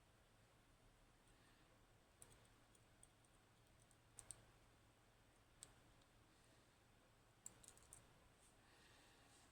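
Faint, sparse clicks of small metal lock parts and tools being handled as a 15-pin Codkey Locksys lock is taken apart, a few coming in quick pairs.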